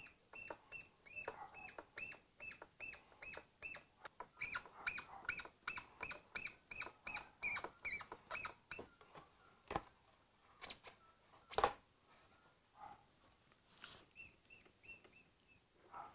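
A hand tool undoing bolts on a motorcycle frame: a quick regular run of short, high squeaky chirps, about three a second, for the first nine seconds or so. A few separate sharp knocks follow, the loudest a little before two-thirds of the way through, then a few fainter chirps near the end.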